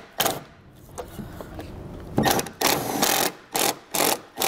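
Milwaukee cordless drill/driver running in short bursts as it drives a screw into the car's body inside the taillight pocket. A brief spin comes near the start, a longer run about two seconds in, and three quick trigger pulses near the end.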